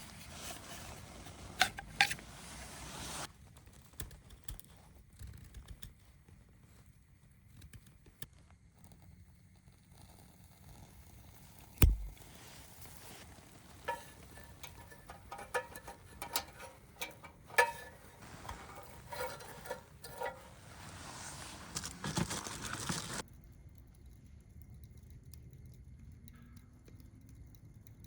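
Knocks and ringing metallic clinks as firewood and tools are handled on a steel fire pit, with one heavy thump about twelve seconds in and short stretches of hiss.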